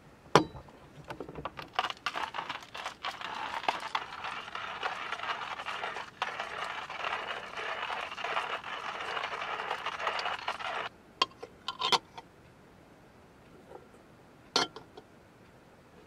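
Hand-cranked stainless-steel coffee grinder grinding beans: a dense crunching rattle that stops suddenly about eleven seconds in. A few sharp metal clinks follow as the metal filter and cup are handled.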